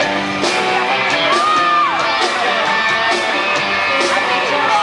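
Live amplified pop-rock band playing a song with guitar and singing, heard from the audience, with scattered shouts and whoops from the crowd.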